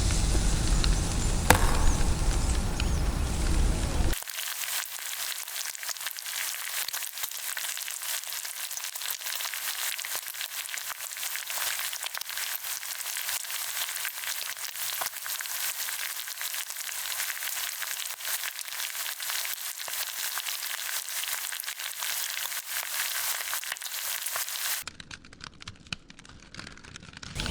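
Food sizzling and crackling as it cooks on a barbecue: a steady high hiss full of fine pops, which drops lower near the end. Before it, a loud rumbling noise cuts off abruptly about four seconds in.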